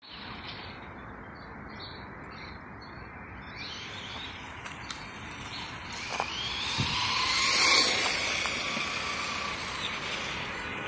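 A vehicle passing by: its noise builds to a peak a little under eight seconds in, then fades, over steady outdoor background noise with birds chirping.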